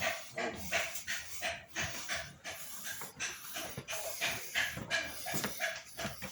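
Rapid, rhythmic panting close to the microphone, about two to three breaths a second.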